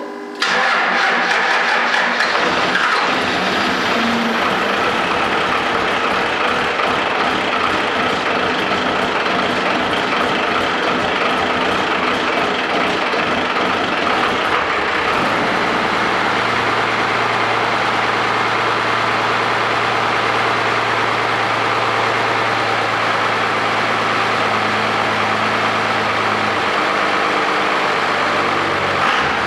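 1995 Cummins 12-valve 5.9 L inline-six turbo diesel with a P-pump, starting up about half a second in and running loud and rough, settling into a steadier idle about fifteen seconds in. This is the engine running after a head gasket replacement.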